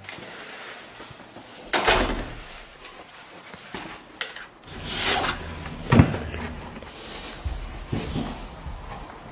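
Indoor handling noises: a few knocks and thumps, loudest about six seconds in, between rustling as a padded jacket is taken off.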